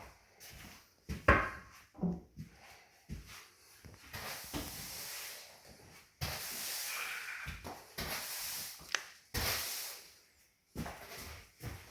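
Irregular knocks and clunks from repair work, with several stretches of scraping about a second long each, the sharpest knock a little over a second in.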